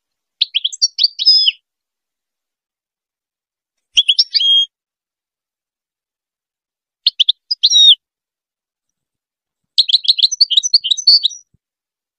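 European goldfinch singing: four short bursts of rapid, high twittering song with silent gaps between them, the last phrase the longest.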